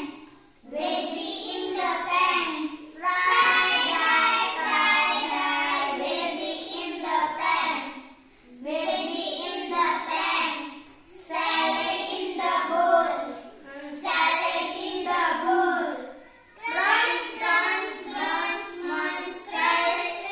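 A small group of young children singing an English action rhyme together in unison, line by line with short pauses between phrases.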